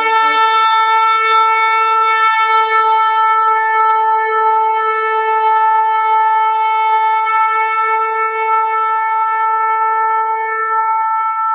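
Shofar blown in one long, steady held note, bright with overtones and even in pitch.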